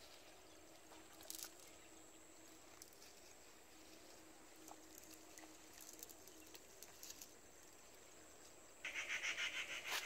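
Faint outdoor quiet with a few small clicks, then about nine seconds in a loud animal call starts, a rapid pulsing of several short pulses a second.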